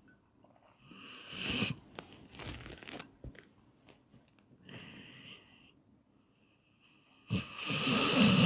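A person snoring in sleep, with rough, rattly breaths: a snore about a second in, a crackling, clicking stretch after it, a softer breath around the middle, and the loudest snore near the end.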